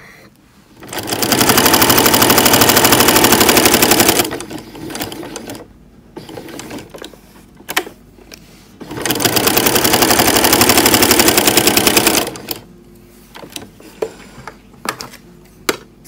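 Janome domestic sewing machine stitching at speed through layered fabric, in two runs of about three seconds each, several seconds apart. Light clicks and handling sounds come between the runs and near the end.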